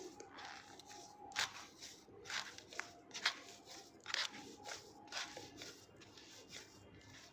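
Hands kneading bajra (pearl millet) dough in a steel plate: irregular rubbing, pressing and scraping strokes, some followed by a short metallic ring.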